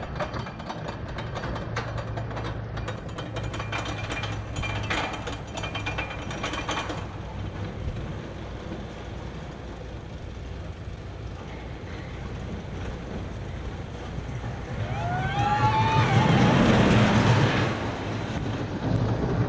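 E&F Miler Hi-Miler coaster train being pulled up its chain lift hill, its anti-rollback ratchet clicking rapidly for the first several seconds, then a steady running sound. Near the end it grows louder as the train crests the top, with a wavering high tone that rises and then falls.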